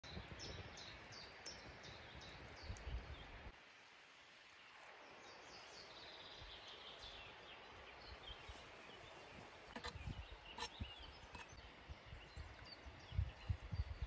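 Faint outdoor ambience: birds chirping and trilling over the low rumble of wind on the microphone, which drops away after about three seconds and picks up again near the end. A couple of sharp clicks come about ten seconds in.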